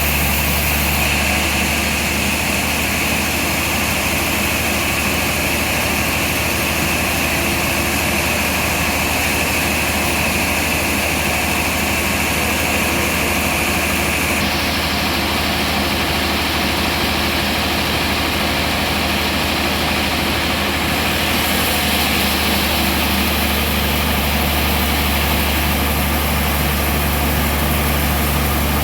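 Band sawmill running with a steady machine hum and a high saw hiss. The hiss shifts abruptly about halfway through and again about two-thirds of the way through.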